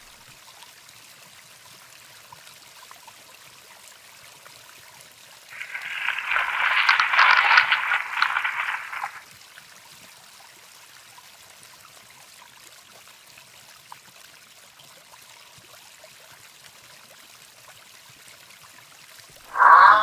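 A giraffe call: one loud, noisy, pulsing call lasting about three and a half seconds, starting about six seconds in, over a faint steady hiss.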